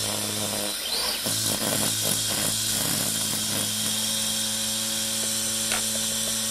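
Radio-controlled lawn mower built on an Arrma Granite Mega RC truck, running with a steady motor hum as it mows grass. About a second in the hum turns rough and choppy for a few seconds, then settles back to a steady hum.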